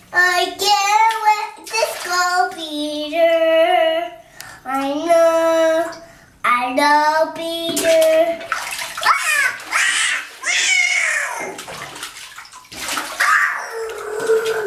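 Young children's high-pitched voices in sing-song calls with long held notes, over bathwater splashing in a tub.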